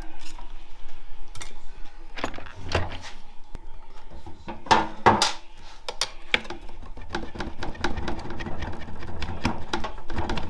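Metal transmission parts clinking and knocking as an automatic transmission is taken apart by hand, with two sharp metal strikes about five seconds in. From about seven seconds on, a dense, even mechanical rattle.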